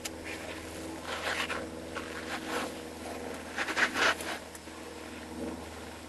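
Footsteps scraping and rustling: several uneven steps, the loudest a pair near four seconds in.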